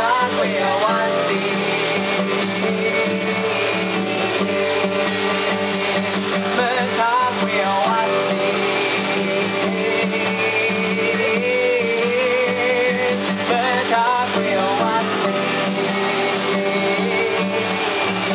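Guitar playing steadily, with a singing voice coming in with short wavering phrases near the start, about seven seconds in and about fourteen seconds in.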